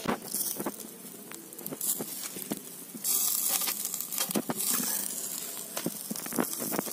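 Chicken grilling over live charcoal, sizzling with scattered crackles and pops. It gets louder about three seconds in.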